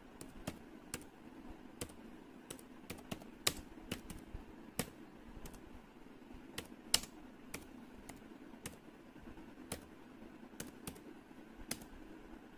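Slow, irregular typing on a laptop keyboard, single keystrokes about two a second, some louder than others. A faint steady hum runs beneath.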